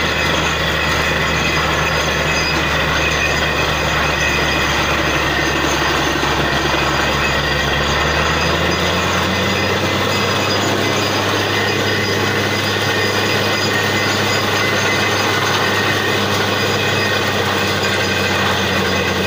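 Truck-mounted borewell drilling rig running under load, its engine a loud steady hum beneath dense mechanical noise. The engine's pitch steps up about eight seconds in.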